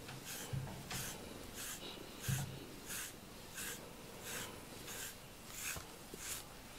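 Grooming brush stroking through a cat's fur, a soft scratchy swish repeated about one and a half times a second, as loose undercoat is combed out.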